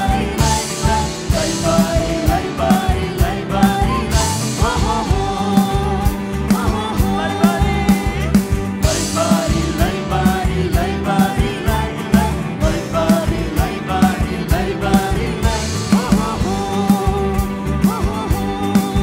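A Christian worship song sung in Nepali over a band, with the voices carrying the melody over a steady drum beat.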